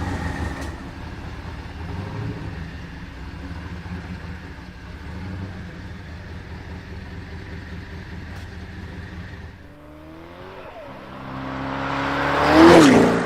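Twin-turbo V8 of an Evantra supercar running at low revs, then revving up in the last few seconds and passing close by, loudest near the end, with its pitch dropping as it goes past.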